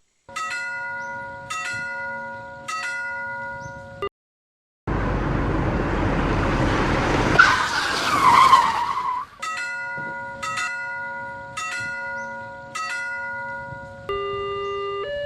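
Railroad crossing bell sound effect ringing about once a second, each ding ringing out. It cuts out for a moment, then a passing train rushes by with a squeal that glides up and down, and the crossing bell dings start again; near the end a held electronic tone steps in pitch.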